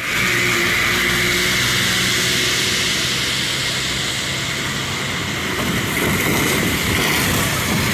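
Road traffic driving through standing water on a wet road: a steady rush of tyre spray and engine noise, with a small truck ploughing through the flooded surface in the second half.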